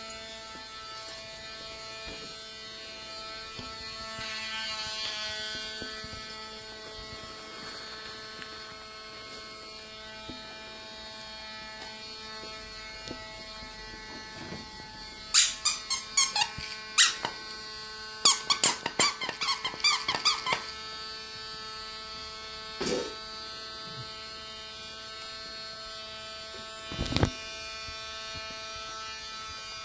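A steady high drill-like whine runs throughout. Between about 15 and 21 seconds in, a squeaky dog toy is squeaked in a rapid string of short squeaks, with two more single sharp sounds a few seconds later.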